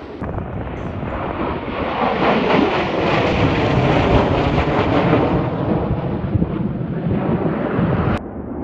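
Jet noise from a formation of Blue Angels F/A-18 jets flying over, a rushing sound that swells to its loudest mid-way and then fades. It breaks off abruptly near the end.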